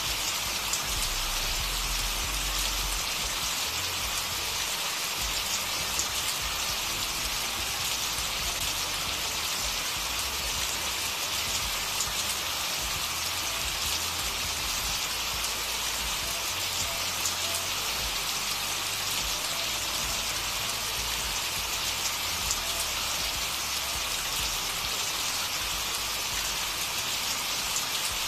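Steady rain sound, a continuous even hiss flecked with fine ticks of drops: the rain track that subliminal audios use to cover their affirmations.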